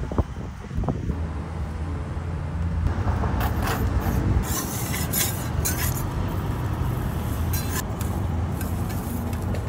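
Sauce squeezed from a plastic squeeze bottle in a run of short sputtering spurts about three to five seconds in, then a metal spatula scraping under a crepe on a steel griddle, over a steady low rumble.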